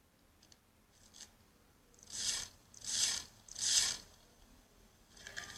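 Slime being worked in a satisfying ASMR video: three short hissing strokes about half a second apart, starting a little after two seconds, with a few faint clicks before and more near the end.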